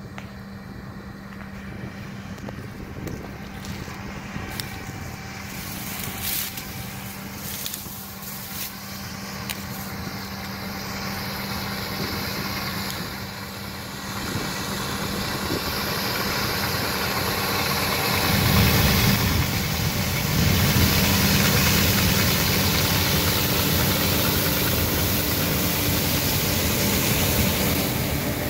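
Massey Ferguson combine harvester picking up a canola swath, its engine and threshing machinery running with a steady hum. It grows steadily louder as it approaches and is loudest in the last ten seconds as it comes alongside.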